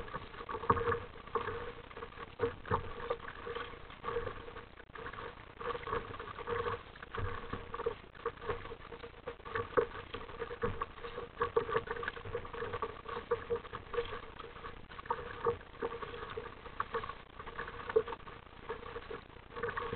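Small waves slapping and splashing against the plastic bow of an RTM Mambo sit-on-top kayak as it moves through choppy sea, an irregular patter of knocks with a hollow ring to it.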